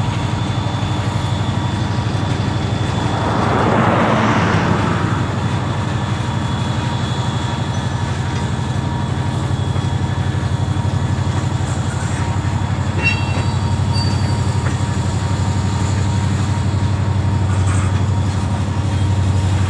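Freight train's cars creeping slowly past on the rails: a steady low rumble of rolling wheels, with a short swell of noise a few seconds in and a few brief high wheel squeals and clicks about two-thirds of the way through.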